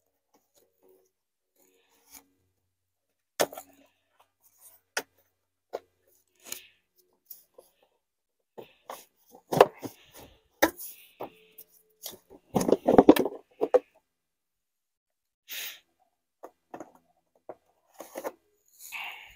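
Hard plastic clicks, knocks and scraping from the engine's air filter box being unclipped and opened by hand, with a quick rattling run of knocks about two-thirds of the way through.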